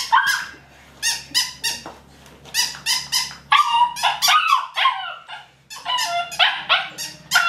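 Siberian husky puppy giving a rapid string of short, high yips and whines, with a longer call that bends in pitch about three and a half seconds in.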